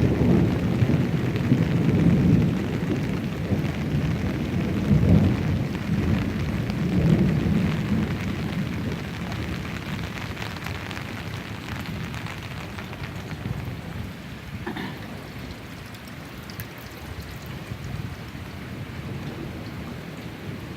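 Steady rain falling, with a louder low rumble over roughly the first eight seconds that then eases into a quieter, even rain hiss.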